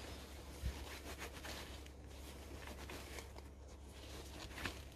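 Faint rubbing of a cloth over a steel angle block held in gloved hands, with a light knock less than a second in and a soft click near the end.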